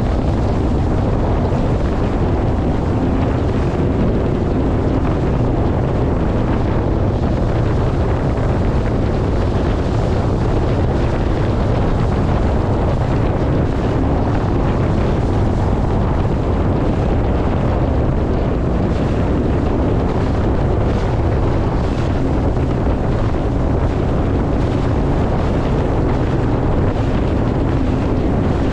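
Personal watercraft engine running steadily under way, with heavy wind buffeting the microphone.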